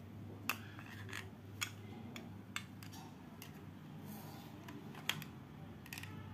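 Small sharp clicks and taps of a precision screwdriver against the plastic housing of a Philips electric shaver being prised apart, scattered irregularly, the loudest about five seconds in, over a faint steady low hum.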